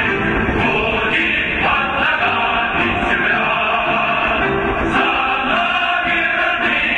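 Choral singing over orchestral music, the soundtrack the fireworks are set to.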